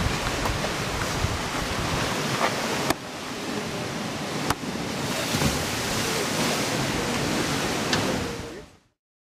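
Sea surf breaking below, with wind buffeting the camcorder microphone in a steady rushing noise and a few brief clicks. It fades out to silence near the end.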